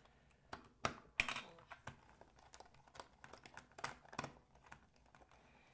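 Small screwdriver clicking and scraping in the screws of a portable radio's case while the radio is handled: a run of irregular light clicks and taps, the sharpest about a second in.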